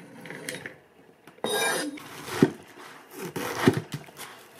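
Restored Japanese nakiri knife cutting vegetables on a plastic cutting board: a short scrape of the blade about a second and a half in, then two sharp knocks of the blade on the board.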